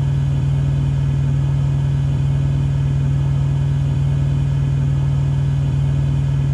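A loud, steady low hum, like a motor or engine running, with a faint tick about every second and three-quarters.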